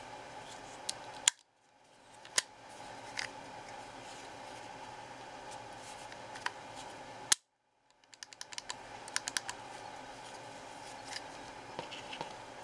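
Sharp plastic-and-metal clicks from a WE G39 (G36) gas-blowback airsoft rifle's trigger assembly worked by hand, as the fire selector lever is snapped between positions and the trigger is pulled. There are a few loud single snaps, then a run of quicker clicks about nine seconds in, with the sound dropping out briefly after two of the loudest snaps.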